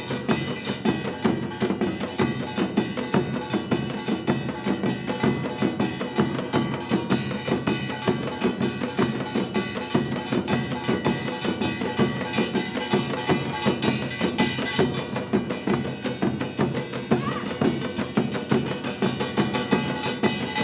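Korean traditional percussion ensemble playing a fast, dense rhythm of drum strikes under steady ringing metallic tones.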